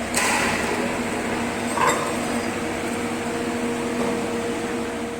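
TIG welding arc hissing steadily over a low machine hum, with a couple of faint clicks near the start and about two seconds in.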